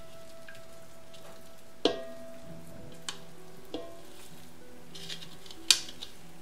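A spatula scraping and knocking against a bowl and a hot Dutch oven as dough is tipped into the preheated pan: four sharp knocks, the loudest near the end, over a faint sizzle. Soft background music with long held notes underneath.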